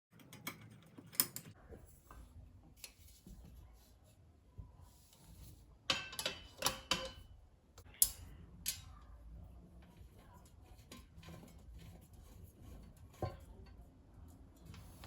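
Scattered light clicks and taps of household objects being handled, with a quick run of knocks a little before the middle and a few sharp single clicks after it.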